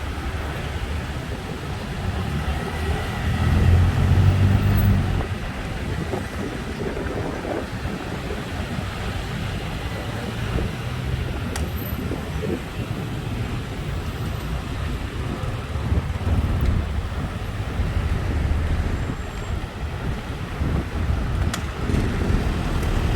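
Road traffic, a steady low rumble of passing vehicles, with a louder swell about four seconds in and another about two-thirds of the way through.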